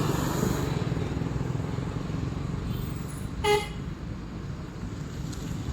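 Steady low rumble of road traffic, with one short vehicle horn toot about three and a half seconds in.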